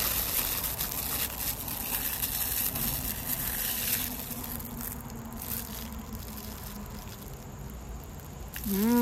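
A foil candy wrapper crinkling as it is peeled open. The crackling fades after about four seconds into a few faint rustles, and a short hummed 'mmm' comes at the very end.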